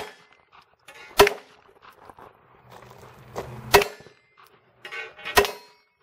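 Three handgun shots at steel targets, about 1.2 s, 3.7 s and 5.4 s in, each followed by the brief clang and ring of a bullet hitting a steel plate.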